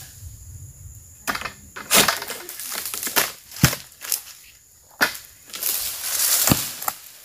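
Dry oil palm fronds rustling and cracking, with a run of sharp snaps and knocks and a longer rustle in the second half.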